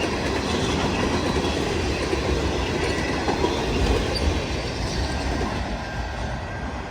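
Freight cars of a long freight train rolling past, a steady rumble and rattle of steel wheels on the rails with clickety-clack over the joints. The sound falls off gradually in the last couple of seconds as the train moves away.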